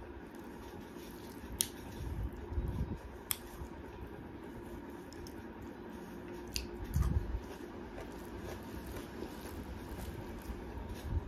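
Someone eating rice by hand at close range: chewing and fingers squishing and mixing rice on a metal plate. A few sharp clicks and soft low thumps come through, over a faint steady hum.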